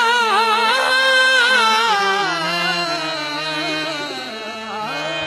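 Qawwali singing: a lead voice holds a long, wordless, wavering note that bends up and down in pitch over steady sustained accompaniment, easing off toward the end.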